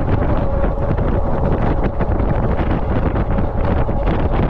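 Wind buffeting the microphone of a handlebar-mounted camera on a moving e-bike: a loud, steady rumble with a faint steady whine underneath.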